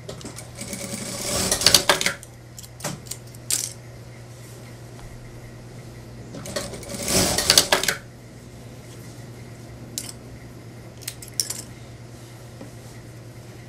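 Industrial lockstitch sewing machine running in two short bursts of tacking stitches that hold the piece in place. Each burst builds for about a second and a half, then stops. A few sharp clicks come between and after the bursts, over a steady low hum.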